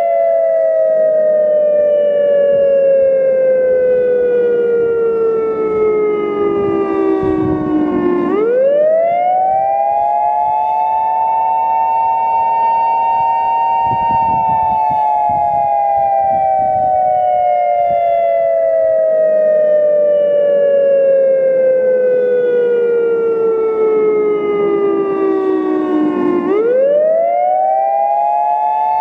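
Federal Signal EOWS 1212 prototype electromechanical siren sounding the attack signal: a loud wail of two close tones that slides slowly down over about twelve seconds, then sweeps quickly back up, holds briefly at the top and slides down again. The quick rise comes twice, about a third of the way in and near the end.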